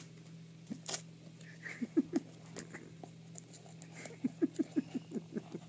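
Small hands patting and tapping on a cardboard toy box and picking at wrapping paper, in light quick taps: a few about two seconds in and a denser run near the end.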